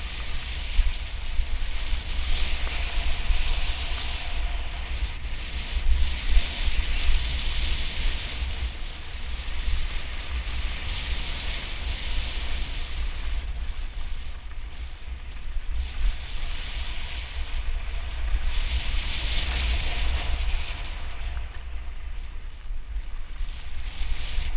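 Wind buffeting a GoPro's microphone on a moving mountain bike, over the hiss of bike tyres rolling on a gravel trail that swells and fades every few seconds.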